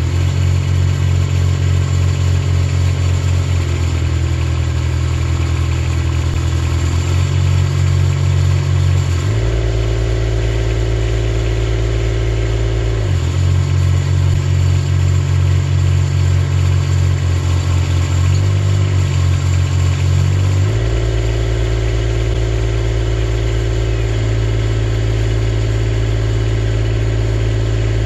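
The engine and hydraulics of a Skylift Mini-Derrick tracked digger derrick running steadily, its note stepping down and back up several times as the boom is raised under hydraulic load.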